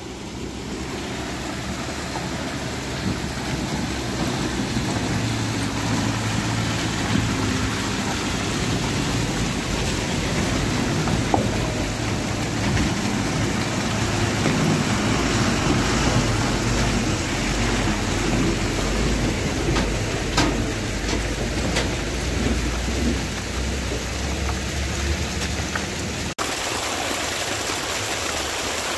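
Steady rush of muddy runoff water pouring down a rock face and across the road. Through the middle, the low running of an Ashok Leyland truck's diesel engine as it passes. After a cut near the end, the close splash of water cascading over rock.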